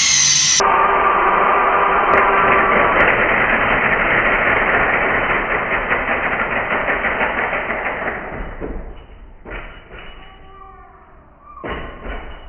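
Makita TW001G 40V high-torque impact wrench driving a long timber screw into wood: the motor runs with a steady whine, then a fast, even hammering sets in as the wrench starts impacting because the screw needs more torque. The sound fades out about eight seconds in, with a couple of short knocks near the end.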